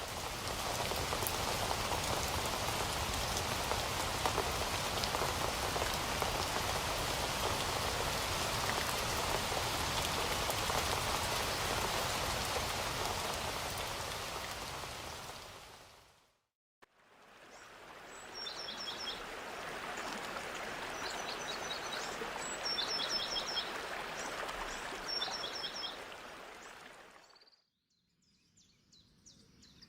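Steady rain falling, a dense even hiss that fades out about halfway through. After a moment of silence a second stretch of rain-like hiss fades in, with a small songbird repeating a short, quick trill four times over it before it fades out near the end.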